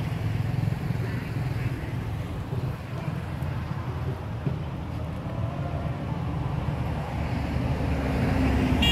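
Steady low rumble of wind buffeting the microphone, with a brief high-pitched chirp right at the end.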